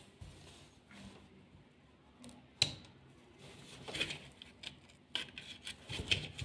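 Scattered faint clicks and rustling, as of small objects being handled, with one sharp click about two and a half seconds in.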